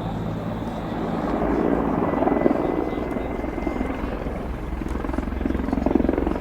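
Mil Mi-24V helicopter in flight, its main rotor and twin turboshaft engines running with a faint steady whine. It grows louder about two seconds in and again near the end.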